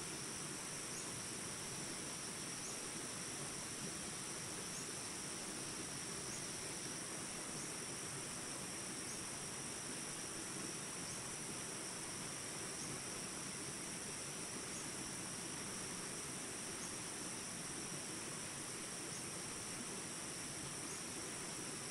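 A steady chorus of crickets trilling continuously on a high note over the even rush of flowing water.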